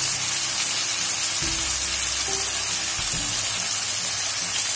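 Shredded cabbage, carrot and capsicum sizzling in hot oil in a pan, a steady hiss that does not let up.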